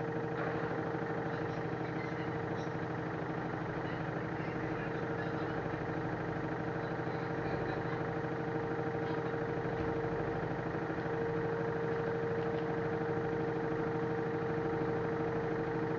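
LG F1089ND front-loading washing machine running its spin: a steady whine over a hum, holding a constant pitch and getting slightly louder about two thirds of the way through.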